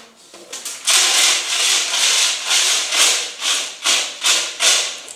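Ice cubes scraping and rattling against each other in a regular run of rough bursts, about two or three a second, starting about a second in.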